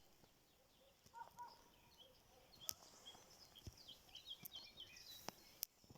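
Faint birds chirping: many short, high notes, busiest in the second half, with a few sharp clicks in between.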